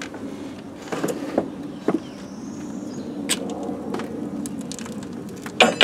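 Honey bees humming steadily over an open nuc hive box, with scattered light clicks and knocks and one sharp, louder knock near the end.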